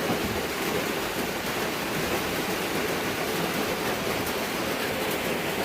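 Steady rushing of water, even and unbroken.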